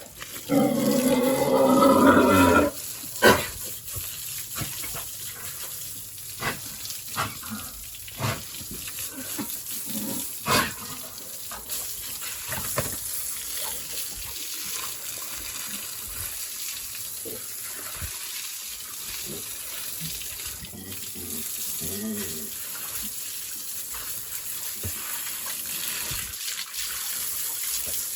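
A pig squeals loudly for the first couple of seconds. Then comes a steady hiss of water spraying from a hose, with scattered short knocks.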